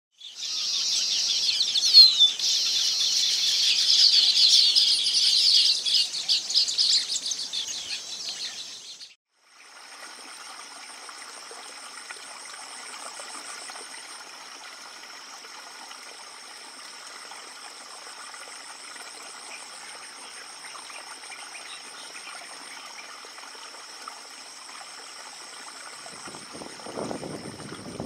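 A dense chorus of many small birds chirping and calling for about nine seconds. After a brief break it gives way to a quieter natural ambience of steady high insect trilling with scattered bird calls. A low rumble joins near the end.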